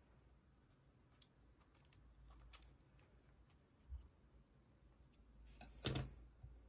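Faint clicks and taps of small plastic and metal AAP-01 airsoft pistol parts being handled and fitted together by hand and with a small tool, with one louder sharp click about six seconds in.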